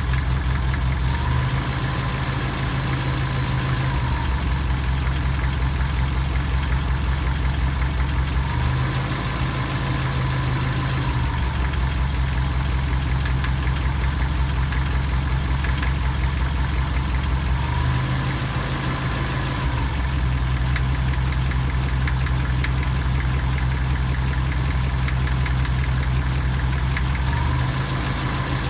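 Engine idling with a knock. Its low hum steps between two pitches every several seconds, with a faint higher tone at each change.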